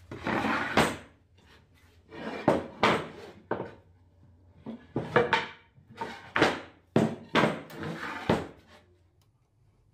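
Solid wooden boards and a round wooden slab handled on a workbench: lifted, slid and set down in a series of scrapes and about ten sharp wooden knocks, stopping about a second before the end.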